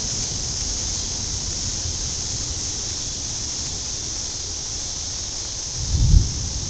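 Gusty thunderstorm wind on the microphone: a steady hiss over a low rumble, with a short, louder low rumble about six seconds in.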